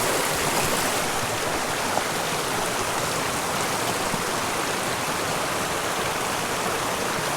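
Small mountain creek's water flowing steadily.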